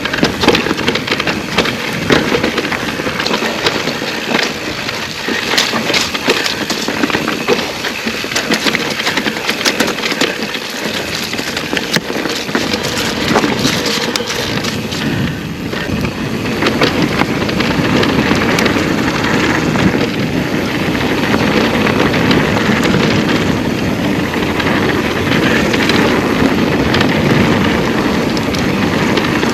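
Wind rushing over a helmet-mounted camera microphone, with tyre noise and rattles from an electric mountain bike being ridden along a rough trail. It is full of sharp clicks at first, then turns louder and steadier about halfway through.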